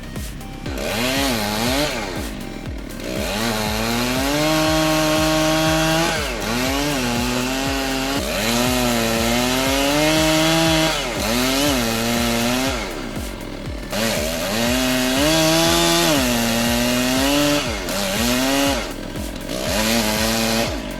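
Two-stroke chainsaw revving up and down over and over, its pitch rising, holding at high revs, then dropping back, over background music with a steady beat.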